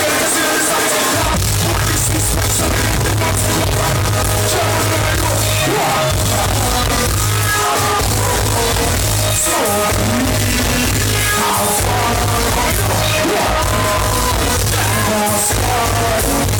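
Live reggae music played loud over a PA, a heavy steady bass line under a vocalist singing and chanting.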